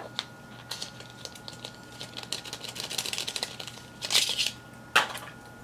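Plastic liquid-lipstick tube being handled and opened: scattered small clicks, a fast run of ticks in the middle, a short rustle a little after four seconds, and one sharp click about five seconds in.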